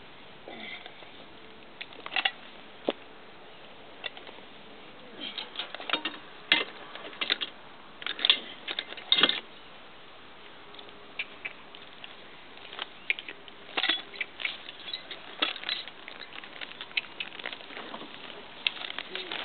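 Metal harness fittings and chains clinking and rattling in scattered short clusters while a draft horse is hitched to a wooden sled, with denser rattling near the end as the horse moves off in harness.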